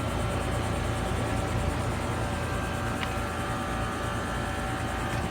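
2005 Trane XR12 heat pump outdoor unit running: a steady low compressor hum with fan noise and a few faint steady tones.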